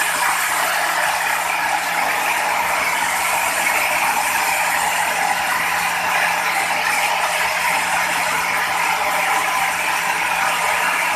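Sawmill machinery running steadily: continuous mechanical noise with a steady low hum underneath, holding the same level throughout.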